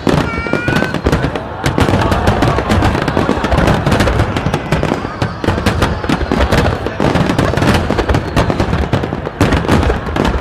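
Fireworks going off in a dense barrage: rapid, overlapping bangs and crackles with no break.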